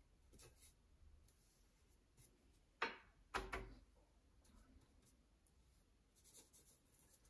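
Faint strokes of a paintbrush brushing across watercolour paper, with two sharp taps a little over half a second apart about three seconds in.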